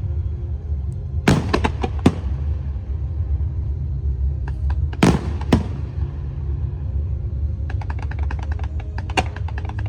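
Aerial fireworks going off: a cluster of sharp bangs about a second in, two more loud bangs around the middle, then a dense rapid crackling over the last couple of seconds, all over a steady low rumble.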